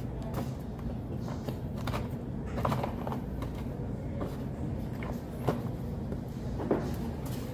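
Steady low room hum with a few scattered soft clicks and taps. The sharpest comes about five and a half seconds in and another near the end.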